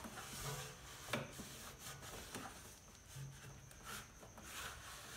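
Faint rubbing of a cloth wiped over the front of a washing machine's tub where the door seal fits, with a couple of light knocks.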